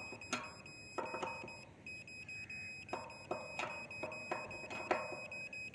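Sharp metallic clicks and clanks, about six of them, as the bolts of a satellite dish mount are tightened by hand and tool, over a steady high-pitched electronic tone.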